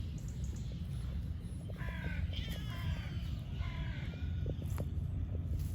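A crow cawing twice, two harsh calls about a second and a half apart, over a steady low rumble.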